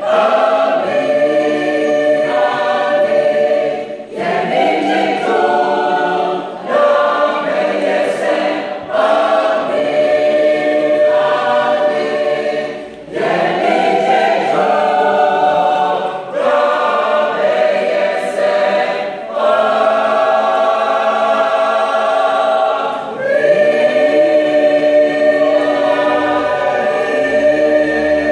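Church choir singing in harmony under a conductor, held notes in phrases broken by short breaks every few seconds.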